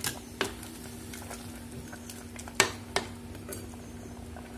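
Steel ladle stirring thick cooked moong dal in a clay pot, with a few sharp clinks of the ladle against the pot, the loudest about two and a half seconds in. A steady low hum runs underneath.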